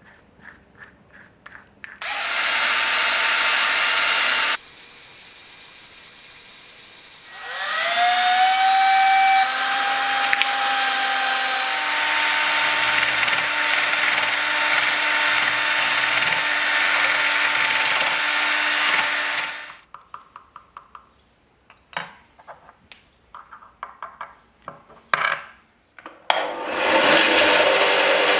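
Small electric power tool working a metal part. A loud hiss starts about two seconds in. Then the motor spins up with a rising whine and runs steadily until about two-thirds of the way through, then stops. A few light clicks and taps of handling follow, and the tool starts again near the end.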